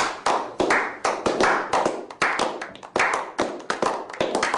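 A small group of people clapping their hands in uneven, overlapping claps, several a second.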